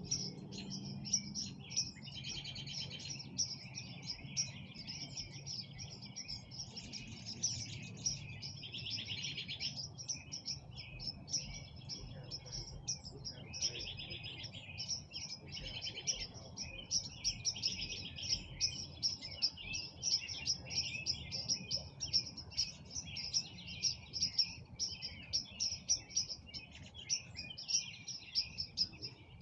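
Many small birds chirping and singing over one another at dusk: a dense, unbroken chorus of quick, high, repeated chirps.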